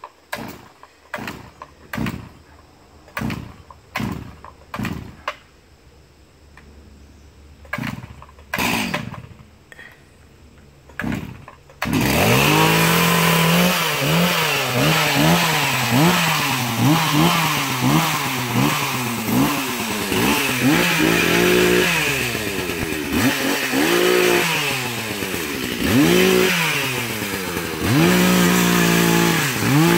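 Two-stroke chainsaw being pull-started: about a dozen quick rips of the starter cord, each with a brief cough from the engine, before it catches about twelve seconds in. It then runs continuously, revved up and down again and again as the throttle is worked.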